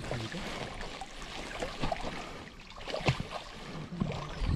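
Water sloshing and splashing as a person wades through knee- to waist-deep mangrove swamp water, with a sharper splash about three seconds in.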